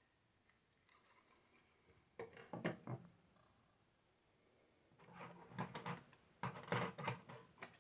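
Faint handling noises on a tabletop. A short clatter about two seconds in as an amplifier board with an aluminium heat sink is set down, then a run of light knocks and rustles as a passive bass radiator is picked up and turned over.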